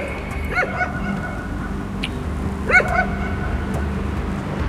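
A dog barking in two short bouts about two seconds apart, the second louder, over a steady low city hum.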